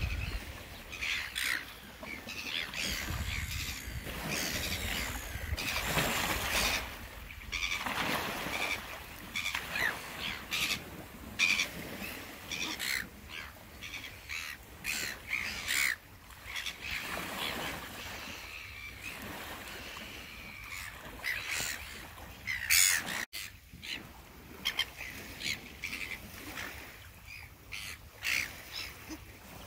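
A flock of red-billed gulls calling and squabbling, with many short, harsh squawks overlapping one another throughout.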